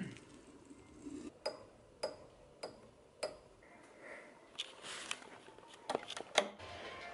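Four light, sharp clicks about a second and a half in, evenly spaced roughly every half second, followed by several louder, irregular knocks and taps near the end.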